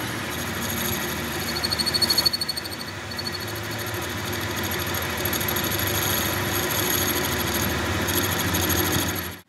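Metal lathe running while a cutting tool is held against a spinning truck-engine piston, machining its rim. There is a brief rapid chatter with a high ring about two seconds in.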